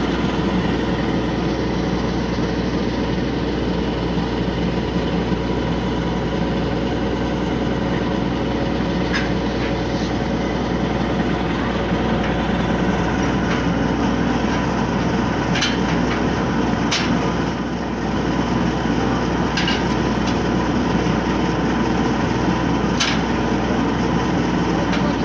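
An engine running steadily at idle, with a handful of sharp metal clanks as the Ferris wheel's steel sweeps are handled.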